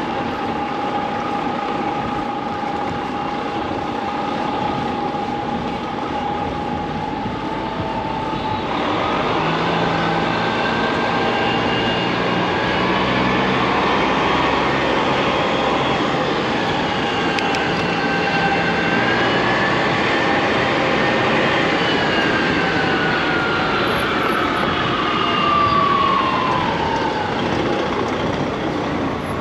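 City street traffic heard from a moving bicycle: a steady hum of vehicles with whining tones that hold, then rise and fall in pitch, and a heavier rumble coming in after about nine seconds.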